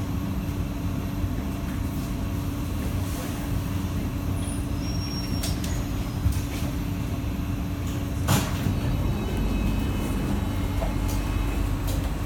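Cabin noise of an SMRT C151B metro train running between stations: a steady low rumble with a constant hum, and a single sharp knock about eight seconds in.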